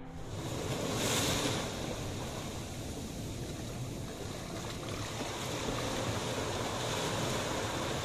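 Small sea waves breaking and washing up a sandy shore around rocks, with a louder surge about a second in.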